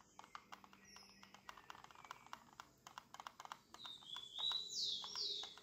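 Quick, light clicking of a digital programmable timer's push buttons pressed over and over to step the hour setting. A bird chirps a few short falling notes about four seconds in, louder than the clicks.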